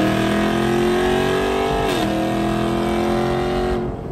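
Dodge Charger SRT Hellcat's supercharged 6.2-litre HEMI V8 at full throttle, heard from inside the cabin. The engine note climbs, drops at an upshift about two seconds in, climbs again, then falls away as the throttle is lifted near the end.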